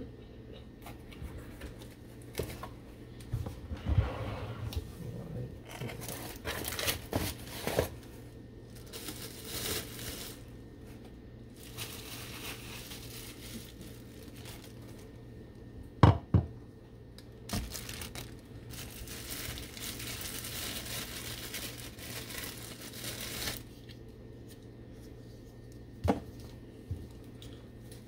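Packing material crinkling and tearing as parts of a coffee maker are taken out of their box, in irregular bursts of rustling. Two sharp knocks stand out, the louder a little past the middle and a smaller one near the end.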